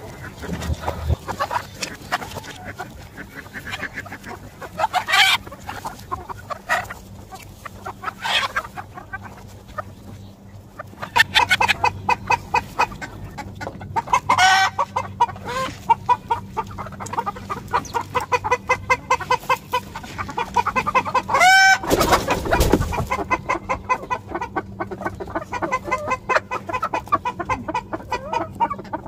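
A flock of chickens clucking continuously in short, repeated calls, with a couple of louder, drawn-out calls about halfway through and again about three-quarters through.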